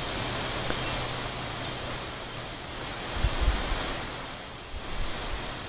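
Insects chirping outdoors in a steady, evenly pulsing high trill over a background hiss, with a few low thumps about three seconds in.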